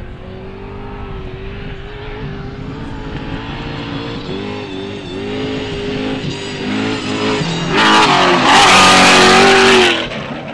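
Trophy truck's V8 racing engine accelerating hard off the start, its note climbing and dipping with throttle and gear changes. About eight seconds in comes a much louder full-throttle pass close by that lasts about two seconds and cuts off abruptly.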